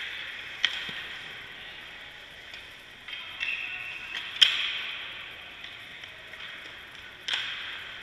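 Sharp cracks of hockey pucks being shot and striking the goalie, each ringing out in the rink's echo. There is one crack about half a second in, a run of smaller knocks leading up to the loudest crack at about four and a half seconds, and another crack near the end.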